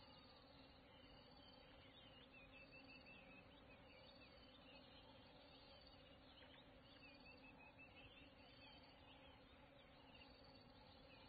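Near silence: faint natural outdoor ambience, a dense chorus of small high chirps over a low steady hum.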